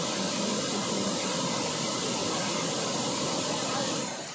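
A steady, even rushing noise with no speech over it, which drops away suddenly about four seconds in.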